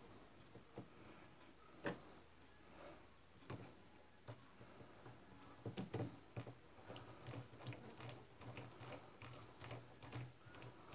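Faint, scattered small clicks and ticks of a screwdriver and fingers fitting a tiny screw into the choke butterfly valve of a scooter carburetor.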